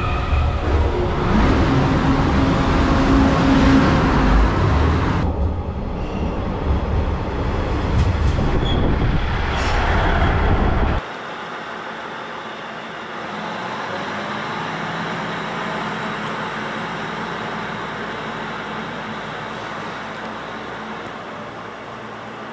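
A KiHa E200 hybrid railcar close alongside the platform gives a loud rush of wheel and running noise, with a steady hum for a few seconds. About eleven seconds in, the sound drops suddenly to the quieter, steady running of a JR KiHa 110 diesel railcar at the platform.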